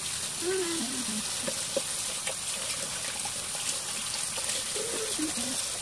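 Kitchen tap running steadily into a stainless steel sink, the stream splashing over leafy greens in a metal strainer as they are rinsed.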